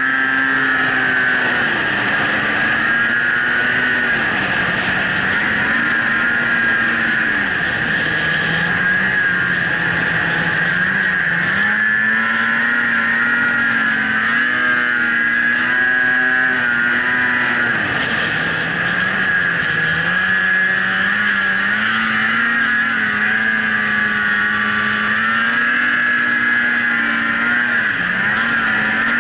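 Snowmobile engine running under way, its pitch rising and falling every few seconds as the throttle is worked, with a steady higher whine over it.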